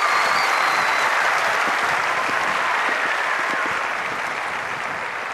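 Large indoor arena crowd applauding, slowly dying away.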